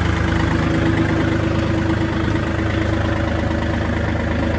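Kubota L4018 tractor's diesel engine running steadily with the throttle raised a little.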